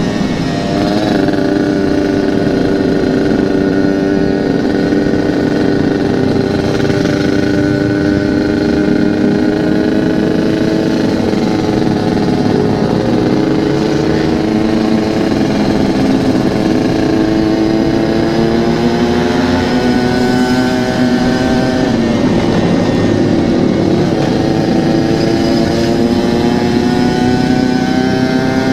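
Yamaha RX-King 135cc two-stroke single-cylinder engine running through a local aftermarket exhaust while riding at steady throttle. Its pitch climbs slowly, drops about two-thirds of the way through, then climbs again.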